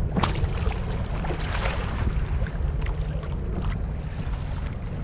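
Wind buffeting the microphone over water sloshing against a kayak on open sea, with a few short sharp knocks.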